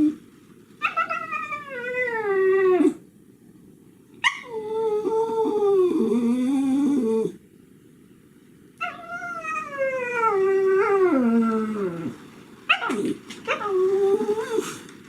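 Shiba Inu howling and whining in four long drawn-out calls, each starting high and sliding down in pitch with a wavering, yodel-like break.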